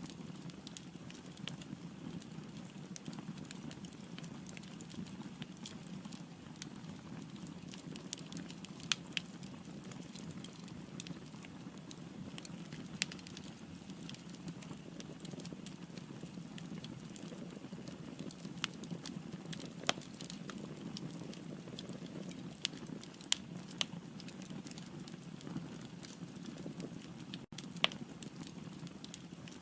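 Firewood burning in a fireplace: a steady low rush of flame with irregular crackling and about ten sharper, louder pops scattered throughout.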